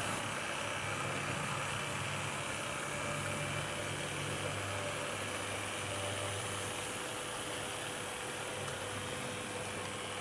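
HO-scale model steam locomotive, a DB BR 78 4-6-4T tank engine, running with its coaches: a steady electric motor hum with the rolling rattle of metal wheels on the track, easing off slightly near the end.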